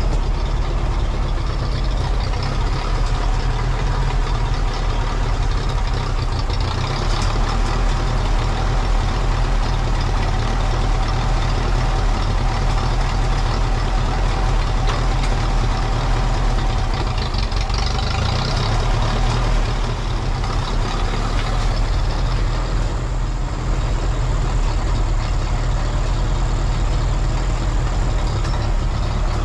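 Vintage Ferguson TEA tractor engine running steadily.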